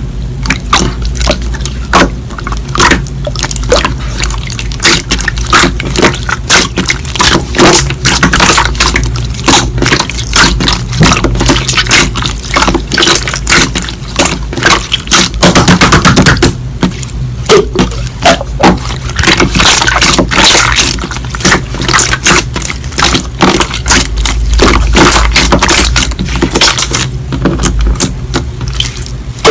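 Slime being squished and kneaded by hand: a dense, irregular run of wet clicks, crackles and squelches.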